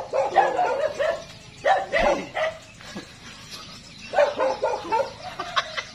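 A small dog yapping in quick runs of short, high barks, with brief pauses between the runs.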